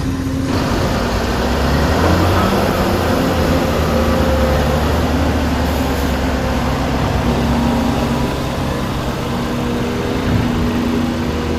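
Dubbed-in sound of a full-size construction machine's diesel engine running steadily under work, a low rumble with a dense rush of mechanical noise that swells in about half a second in.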